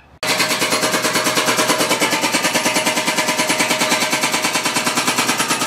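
Construction machinery hammering rapidly and evenly, like a jackhammer, about a dozen blows a second. It starts abruptly and cuts off suddenly.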